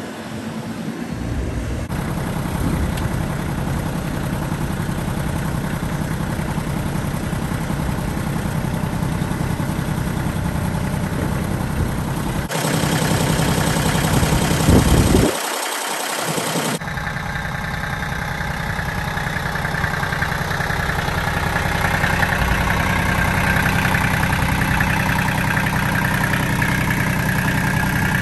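Ford 1220 compact tractor's diesel engine running steadily at idle. For a few seconds a little under halfway through, the sound turns brighter and louder with a short rise in pitch, then settles back to a steady idle.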